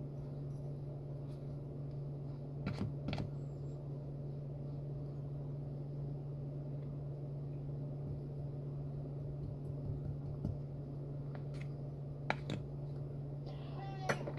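A steady low hum, with a few light clicks about three seconds in and again near the end.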